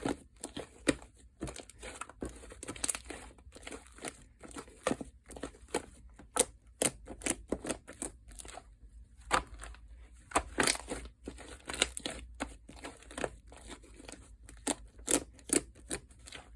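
Fluffy shaving-foam slime being squished and pulled by hand: irregular crackles and small pops, several a second.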